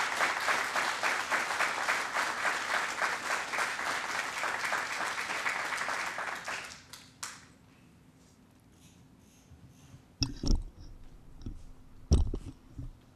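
Audience applauding, the clapping dying away about seven seconds in. Then two dull thumps, about two seconds apart.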